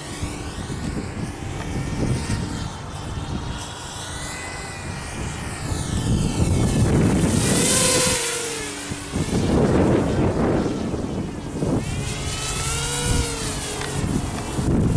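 Walkera F210 racing quadcopter's brushless motors and propellers whining in flight, the pitch gliding up and down with the throttle over a rushing noise. It is loudest a little past halfway.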